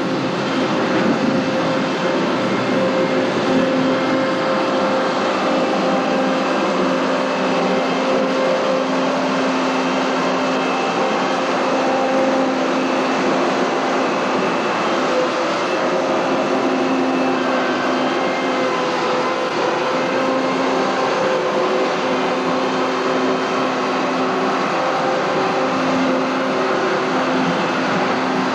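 Heavy harvest machinery running steadily at a constant engine speed, a loud, even drone with a steady low tone throughout.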